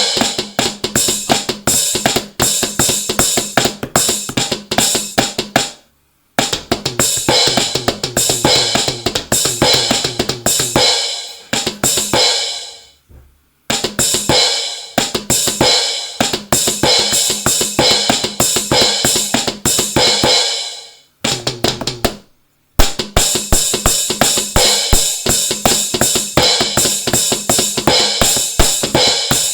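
Electronic drum kit played with fast, dense strokes of kick, snare, hi-hat and cymbal sounds. The playing stops three times for about a second, and twice a cymbal sound dies away just before the stop.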